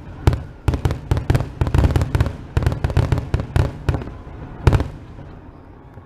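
Fireworks going off in a rapid string of sharp bangs and crackles that stops about five seconds in.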